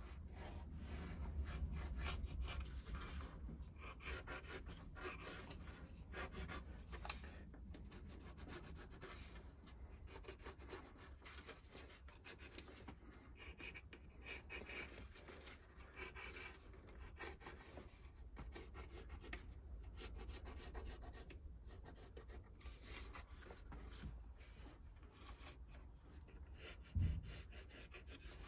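Pencil scratching on a model ship's wooden hull planking in many short strokes, marking gun port positions through the openings of a paper template. A low rumble runs underneath, and there is one short thump near the end.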